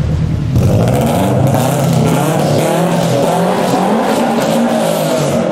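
Modified car engine revving hard and accelerating away, starting about half a second in, its pitch rising and dipping as it pulls.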